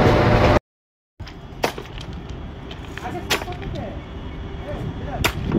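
Heavy train running close by, cut off abruptly about half a second in. After a brief gap comes the steady hum of a standing WAG-12B electric locomotive, broken by sharp cracks about every one and a half to two seconds.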